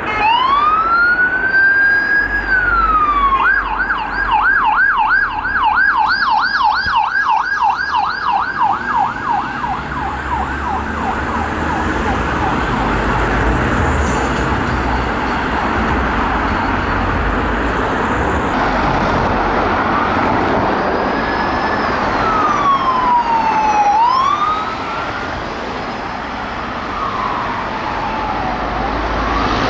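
Police car electronic sirens. One starts on a slow wail and switches to a fast yelp at about three to four cycles a second, then gives way to steady road traffic noise. Near the end a second car's siren sounds in slow wails.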